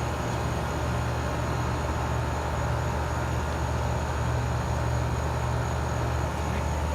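Air-conditioning condensing unit running: a steady low hum with even fan and airflow noise, unchanging throughout.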